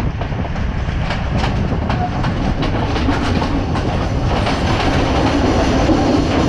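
Passenger train running along the track: a steady low rumble with irregular clicks of the wheels over rail joints, growing somewhat louder about four seconds in.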